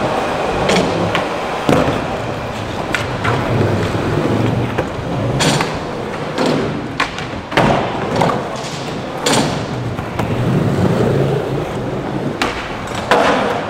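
Skateboard wheels rolling, with about a dozen sharp board clacks and thuds from tricks, landings and bails at irregular intervals.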